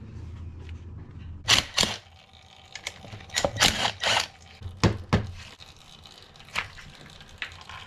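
Cordless drill-driver spinning in short bursts as it backs out the bolts of a pit bike engine's oil filter cover, with sharp clicks and knocks of metal parts being handled; the busiest stretch comes about three and a half to four seconds in.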